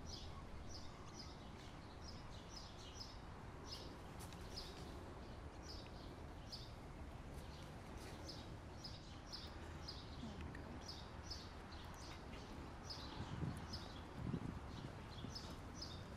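Outdoor ambience of small birds chirping in short repeated calls over a low steady rumble. A few soft low thumps come near the end.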